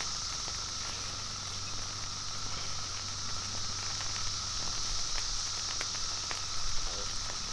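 Chicken wings sizzling on a Blackstone flat-top griddle: a faint, even crackle with scattered small pops. Under it runs a steady high drone of cicadas.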